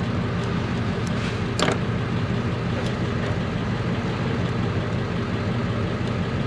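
Steady low mechanical hum in the background, with one sharp click about one and a half seconds in.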